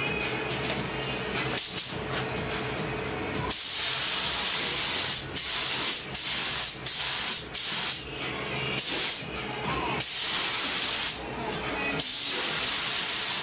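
Gravity-feed paint spray gun hissing in a series of sharp-edged bursts, each half a second to two seconds long, as the trigger is pulled and released on each pass. It is laying a light coat of black paint at about 35 psi air pressure.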